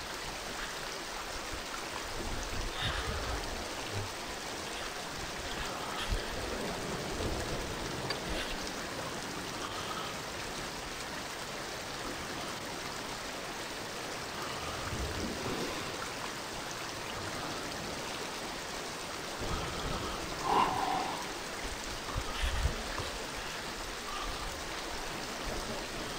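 River water running steadily in an even rushing wash, with occasional low thumps and one short, louder sound about two-thirds of the way through.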